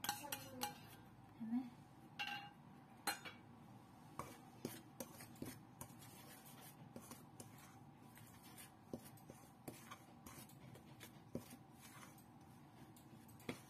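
Hand mixing flour and liquid in a stainless steel bowl: light, irregular clicks and taps of fingers and the bowl against the metal, with a few sharper knocks in the first few seconds.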